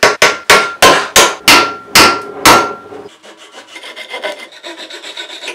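A steel club hammer knocks a glued wooden dowel down into its hole in plywood: about eight sharp strikes over the first two and a half seconds, some with a short ring. Then a fine-toothed handsaw rasps back and forth with quick strokes, cutting the protruding dowel off flush.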